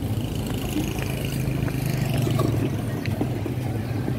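Street traffic: a steady low engine hum, with a passing vehicle that comes up about half a second in and fades away before three seconds.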